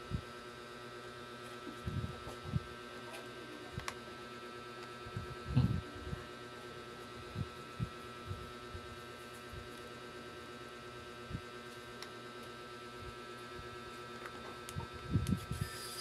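Faint steady electrical hum, with scattered soft knocks and taps from hands handling a new M.2 SSD and a precision screwdriver on an open laptop's chassis.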